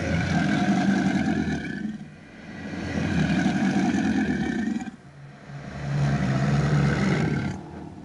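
Designed dragon growl built from alligator recordings: three long, low growls of about two seconds each, with short breaks between them.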